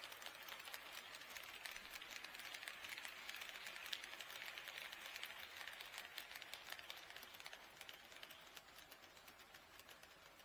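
HO-scale model train rolling on KATO Unitrack, its wheels making rapid light clicks and a soft rolling hiss over the rail joints. It passes, loudest a few seconds in and fading near the end.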